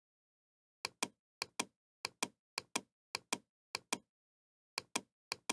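Computer mouse button double-clicked about eight times in a row: pairs of sharp clicks, the pairs about half a second apart, with dead silence between them.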